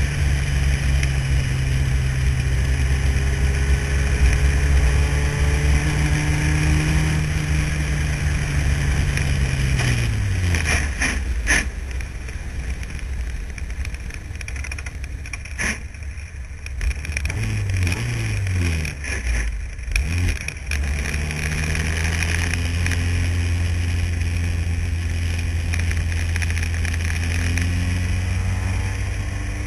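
Renault engine of an open-wheel formula car heard from the cockpit, held at high, steady revs. About ten seconds in the revs drop away, with a few quick up-and-down revs and sharp knocks. From about twenty seconds in the engine pulls steadily again, its pitch slowly rising.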